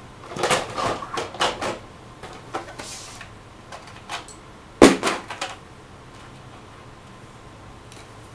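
Small hard objects being handled and rummaged through: a run of clicks and rattles in the first couple of seconds, a few scattered ticks, then one sharp knock about five seconds in.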